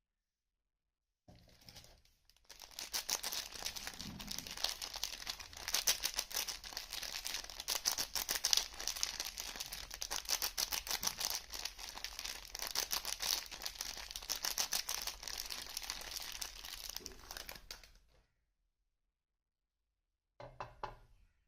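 Soap packaging being torn open and unwrapped close to the microphone: dense, rapid crinkling and tearing that starts a second or so in, runs for about sixteen seconds and stops abruptly, then a brief second rustle near the end.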